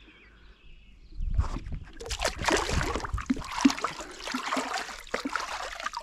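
Lake water splashing and sloshing as a smallmouth bass is lowered in by hand and released, starting about a second in and going on in quick irregular spatters.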